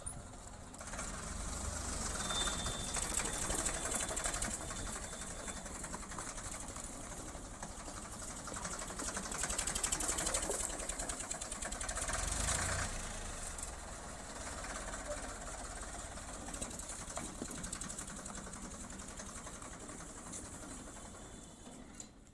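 Ford 3600 tractor's three-cylinder diesel engine running with a rapid, steady clatter while the tractor is driven in circles, swelling and fading as it comes near and goes away.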